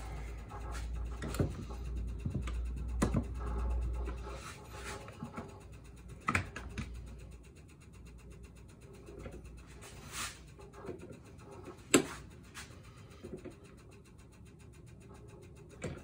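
Scattered clicks and knocks of an aluminium Shimano XT crank being handled and clamped in a steel bench vise, the loudest a sharp knock about twelve seconds in. A low hum fades out over the first four to five seconds.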